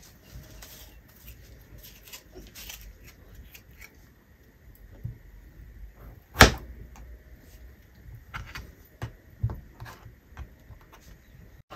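Kitchen knife cutting a tomato: scattered, irregular knocks of the blade against the cutting board, the loudest about halfway through.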